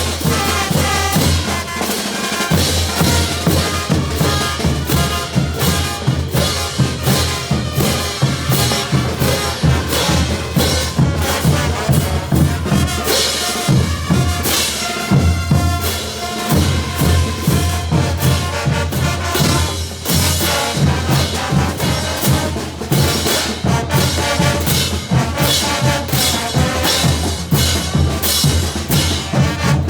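Bolivian brass band playing a caporales: brass over a driving bass drum and snare beat.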